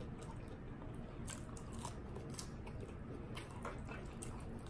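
Close-miked eating of fried chicken wings and shrimp: scattered small crunches and mouth clicks from biting and chewing, over the steady low hum of a room fan.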